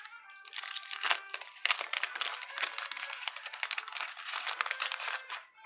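A 1988 Topps baseball wax pack being torn open by hand: the wax-paper wrapper crackles and crinkles in a dense run of small snaps, stopping just before the end.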